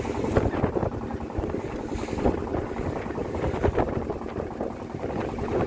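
Small wooden motor fishing boat running through choppy sea. The hull slaps into the waves and spray splashes over the bow, mixed with the engine and wind buffeting the microphone.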